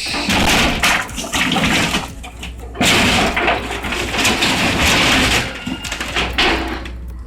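Demolition noise: loud crashing and rushing of collapsing debris that comes in surges, starting abruptly.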